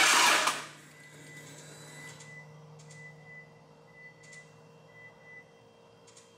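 The Evo 8's freshly rebuilt 4G63 turbo engine is loud, then cuts off about half a second in. After that comes a quiet stretch with a faint steady hum and a few light clicks.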